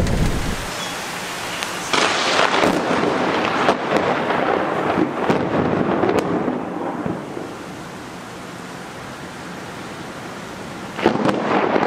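Thunder from close lightning strikes. A low rumble fades out in the first second, then a sudden crackling thunderclap about two seconds in rumbles on for several seconds. It dies down to a steady hiss of rain before another sharp clap near the end.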